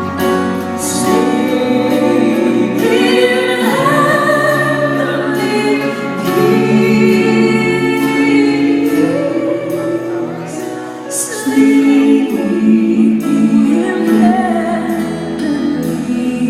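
A live worship band playing a song with sung vocals over sustained chords and regular percussive strokes.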